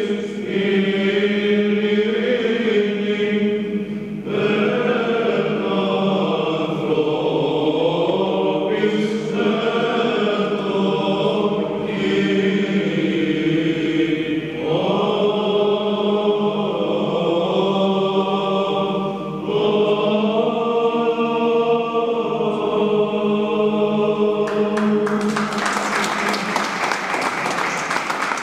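Men's Byzantine church choir chanting a Greek Orthodox Christmas-season hymn in unison over a steady low held note. Near the end the hymn closes and applause breaks out.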